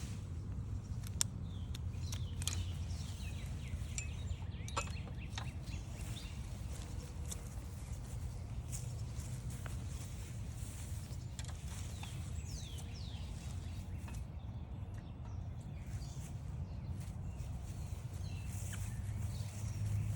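Several wild songbirds calling, with short chirps and quick falling whistles scattered throughout, over a steady low rumble. A sharp click sounds about a second in.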